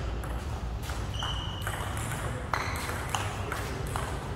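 Table tennis rally: the ball clicking sharply off the paddles and the table in quick alternation, about two hits a second, over a steady low hum of the hall.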